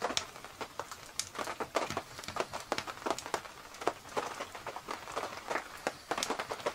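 Rain falling on the canvas of a military Arctic tent: irregular sharp drop taps, several a second, over a faint hiss.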